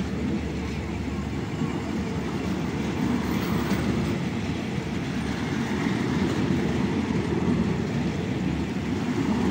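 Passenger railway coaches rolling past at close range: a steady rumble of steel wheels on the rails.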